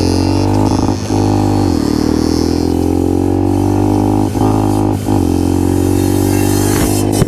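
Small-displacement supermoto motorcycle engine running steadily under way, with brief dips in its note about a second in and twice more between four and five seconds in.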